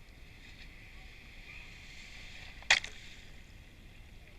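A single sharp crack about two-thirds of the way in, with a brief trailing tick, over a steady high hiss.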